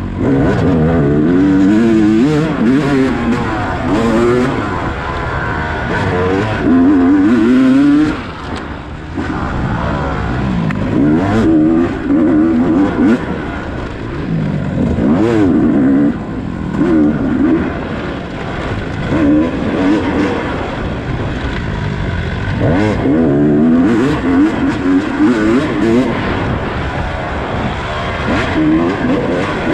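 Dirt bike engine revving up and down as it is ridden hard on a rough trail, its pitch climbing and dropping every second or two as the throttle is worked on and off. Occasional sharp knocks from the bike hitting bumps are also heard.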